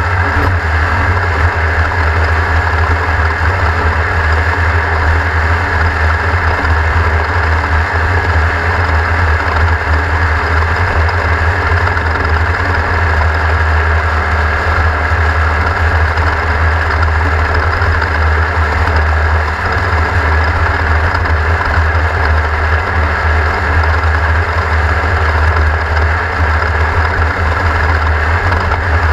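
Race car engine running steadily, its revs holding level with no rises or falls.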